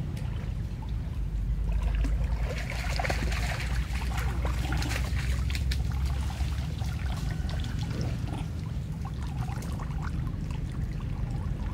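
Water splashing and trickling as a long-tailed macaque swims through shallow floodwater and hauls itself out onto a sapling, dripping; the splashes are busiest a few seconds in, over a steady low rumble.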